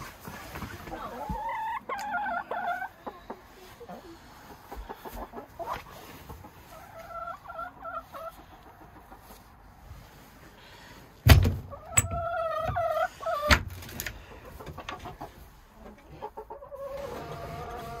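Chickens clucking and calling in several short bouts. A sharp knock about eleven seconds in is the loudest sound, and a second knock follows about two seconds later.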